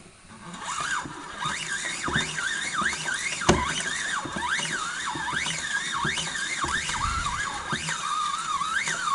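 Casdon toy Hoover Electron 1100 washing machine running, a whine that starts about half a second in and keeps rising and falling in pitch over and over.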